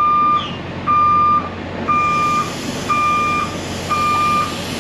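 Vehicle backup alarm beeping about once a second, each beep about half a second long, a sign that the vehicle is reversing. A steady hiss comes in beneath it about two seconds in.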